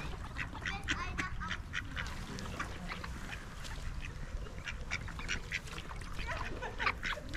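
A group of ducks quacking and calling, many short calls following one another and overlapping, over a steady low background rumble.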